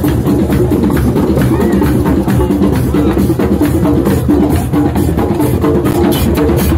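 A drum circle: many hand drums played together in a dense, loud, continuous rhythm.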